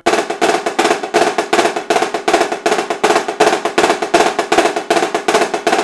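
Marching snare drum played with sticks at a fast tempo: cheese and blue cheese rudiments, very tight flams followed by quick accented strokes and diddles, in a continuous stream of strokes.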